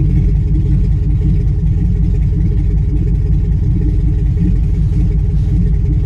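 A 2005 Chevy Tahoe's 5.3-litre V8 idling loudly with an uneven, rough note, heard from the cab, with nothing but the Y-pipe and catalytic converters for exhaust. The roughness is a misfire on bank one (cylinders 1, 3 and 7), which the mechanic traces to a faulty bank 1 sensor 1 oxygen sensor that makes the engine run rich.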